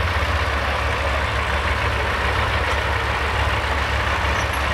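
Diesel engine of a street semi truck idling steadily, a constant low hum, while the truck sits hooked to the pulling sled before its pull.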